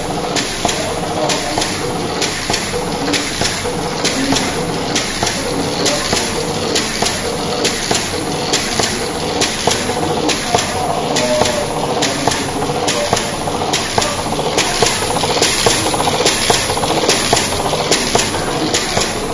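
SMT pick-and-place machine running, its placement head picking components from the tape feeders and setting them on LED strip boards: a steady, even rhythm of sharp mechanical clacks, several a second, over constant machine noise.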